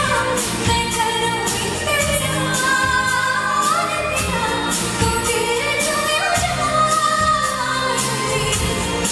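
A woman sings a slow Bollywood melody live over a band, with a steady drum beat under the vocal. It is heard as picked up from the audience in a concert hall.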